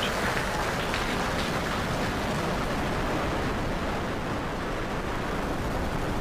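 Steady rumbling roar of a Falcon 9 Block 5 first stage's nine Merlin 1D engines climbing away just after liftoff, heard from the ground. The highest hiss fades a little about halfway through as the rocket gains height.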